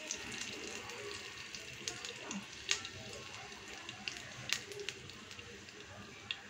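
Mustard seeds, urad dal and whole spices sizzling in hot oil in a non-stick frying pan, with a few sharp pops as the seeds splutter.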